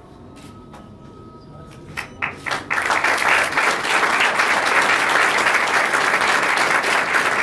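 Audience applause: a few scattered claps about two seconds in, then the room breaks into loud, steady applause.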